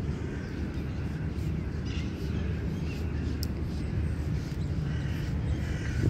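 Crows cawing several times, in short calls, over a steady low outdoor rumble.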